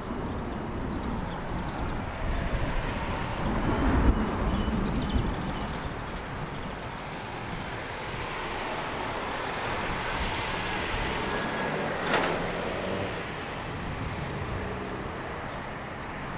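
Street traffic noise, with one vehicle passing more loudly about four seconds in and a single sharp knock about twelve seconds in.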